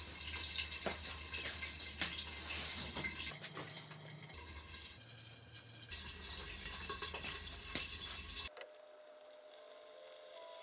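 Faint kitchen room sound with a low hum and scattered light clicks and knocks. About eight and a half seconds in it cuts to background music with a simple stepped melody.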